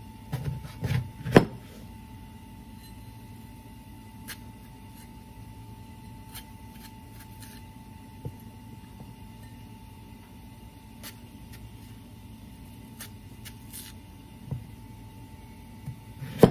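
Kitchen knife cutting through an apple and knocking on a plastic cutting board. A cluster of knocks comes in the first second and a half, then scattered faint taps, then one sharp knock at the very end.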